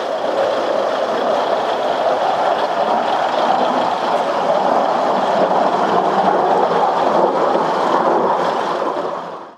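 Idling diesel engines of the coupled Kiha 222 and Kiha 2005 railcars, a steady engine noise heard close beside the cars. It fades out near the end.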